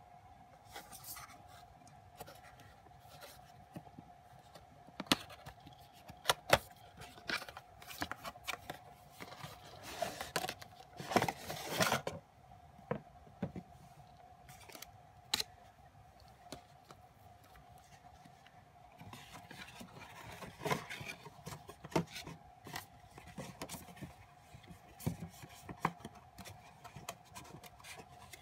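Cardboard boxes and plastic-wrapped packs being handled on bubble wrap: scattered taps, knocks and scrapes, with a longer rustling scrape about ten to twelve seconds in. A faint steady hum runs underneath.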